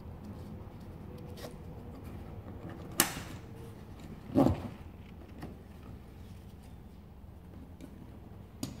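Handling of a kayak seat's nylon straps and plastic buckles: a sharp click about three seconds in, then a louder short rub about a second and a half later, with a few faint ticks and a small click near the end.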